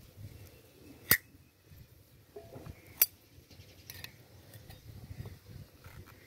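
Metal tongs clicking against a metal pot while boiled corn cobs are turned in the water: two sharp clinks about two seconds apart, then a few lighter taps.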